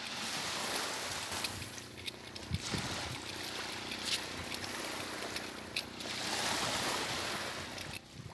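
Small waves washing onto a sandy beach: a steady rushing that swells and eases twice, with a few soft knocks.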